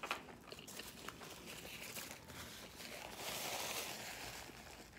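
A paper napkin crinkling and rustling as it is handled and wiped at the mouth, loudest from about three seconds in, after a few light clicks.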